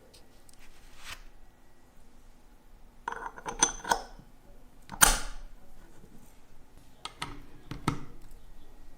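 Small metal watch parts and watchmaker's tools clicking and clinking on a bench: a few light clinks, a cluster of them a third of the way in, one sharper click about halfway, and two more near the end.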